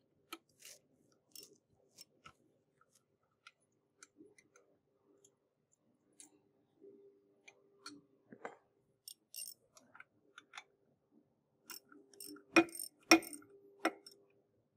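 Wrench working the bolts on a steel impact bed frame: scattered light metallic clicks and clinks of tool on metal, with two sharp metal knocks about half a second apart near the end and a lighter one after.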